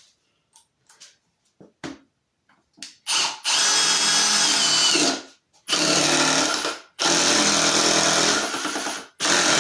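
Milwaukee M18 Fuel Surge hydraulic impact driver driving a screw in its soft drive mode, the mode meant to keep screws from being overdriven, in several runs of one to two seconds with short pauses. A few light clicks come before it starts.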